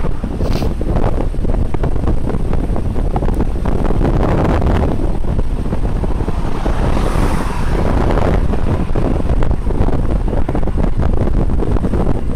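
Wind buffeting a phone's microphone on a bicycle riding downhill at speed: a loud, continuous low rumble, swelling briefly about seven seconds in.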